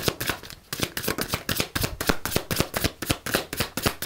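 Tarot cards being shuffled by hand in an overhand shuffle: a quick run of crisp card slaps and flicks, several a second, with a short pause about half a second in.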